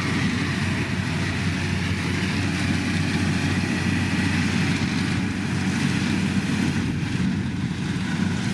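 Kubota DC-105X combine harvester running steadily, with an even engine drone that holds the same pitch throughout.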